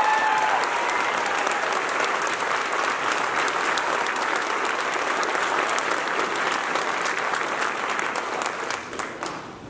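A large audience applauding, a dense steady patter of many hands clapping that fades away in the last second.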